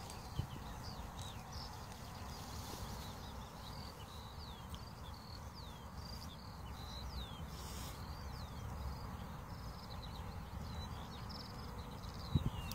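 Small birds chirping: many short, quick downward-slurred notes scattered throughout, over a low rumble of wind on the microphone, with a single thump near the end.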